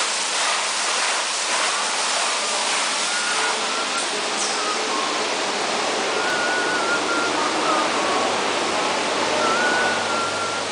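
Automatic tunnel car wash running on a car: a steady rush of water spray with the rotating nylon brushes scrubbing the body. Faint high whines waver in pitch over it now and then.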